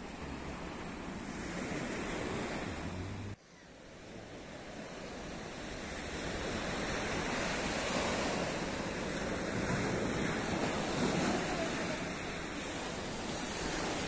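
Small Black Sea waves breaking and washing up on a sandy shore, with wind buffeting the microphone. The surf noise cuts out abruptly about three and a half seconds in, then builds back up and carries on.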